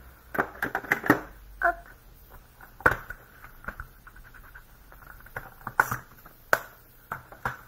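Hands handling stamping supplies on a desk: a series of sharp clicks, taps and knocks as an ink pad and a clear acrylic stamp block are picked up and put down.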